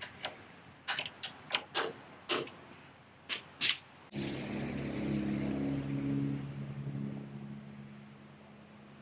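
About nine sharp metallic clicks and clinks over the first four seconds as clutch parts are worked into the bell housing. Then a steady low hum starts suddenly and slowly fades.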